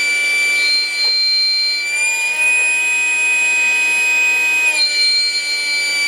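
High-volume inflator fan of an Avid digital air compressor running in suction (deflate) mode, a steady high-pitched whine. About two seconds in its pitch rises slightly, then drops back just before five seconds.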